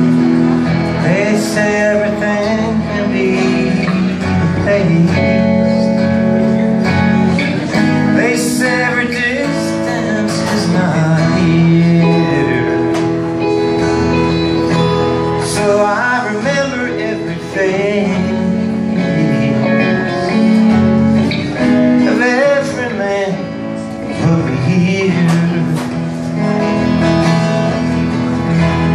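A live band playing a song, with guitar and singing.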